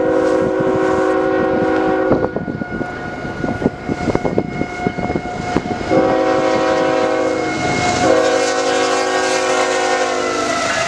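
CN freight locomotive's air horn sounding three chord blasts as the train approaches. The first and last blasts are long and the middle one is shorter, over the steady rumble of the passing train and its double-stack cars.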